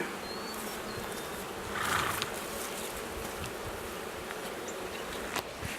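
Honey bees buzzing steadily, a low continuous hum, with a brief rustle about two seconds in and a light click near the end.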